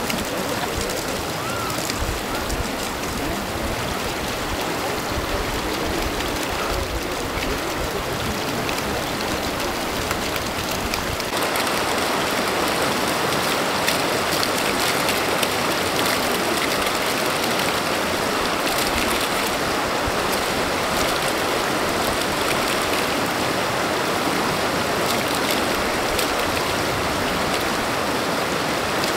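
Shallow mountain river running over stones: a steady rush of flowing water that becomes louder and fuller about eleven seconds in.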